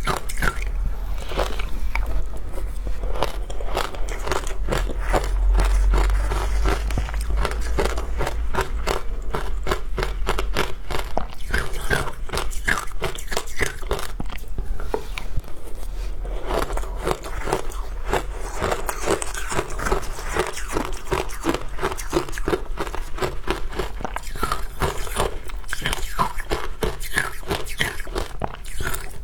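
Close-miked biting and crunching of frozen matcha ice: a dense, fast run of crisp cracks and crunches with some chewing between bites.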